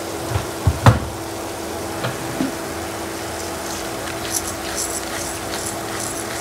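Rau móp and garlic frying in a pan: a steady sizzle with scattered crackles in the second half, over a constant low hum. A few sharp knocks come about a second in.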